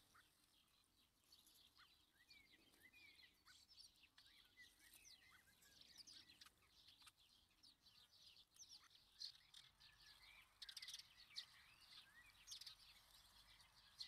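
Faint, busy chirping of small songbirds: many short calls and quick rising and falling notes throughout.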